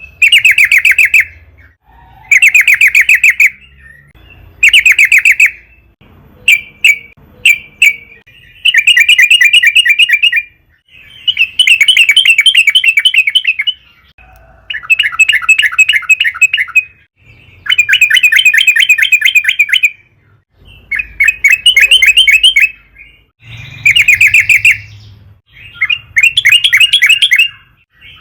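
Yellow-vented bulbul (trucukan) song: about a dozen loud phrases of fast, stuttering chattering notes, each lasting one to three seconds, with short pauses between them.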